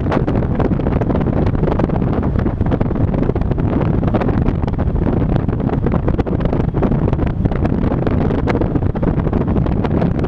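Wind buffeting the microphone of a camera mounted on the outside of a moving car, in constant irregular gusts, over the low noise of the car's tyres and engine at road speed.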